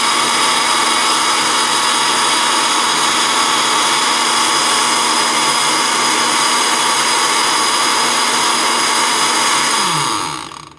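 Countertop electric blender running steadily at full speed, liquidising grapes with a little water into juice. It is switched off near the end and the motor winds down with a falling pitch.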